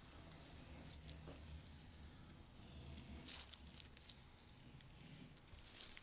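Automotive masking tape being peeled back off freshly painted wood hull paint: a faint crackle and rustle, louder about three seconds in and again near the end, over a low steady hum.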